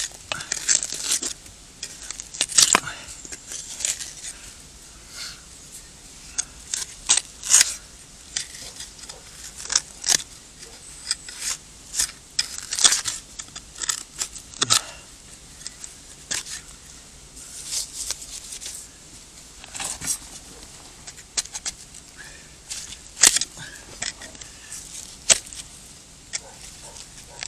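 Knife blade chipping and scraping at very hard-packed dirt around a buried glass bottle: irregular sharp clicks and scrapes, about one or two a second.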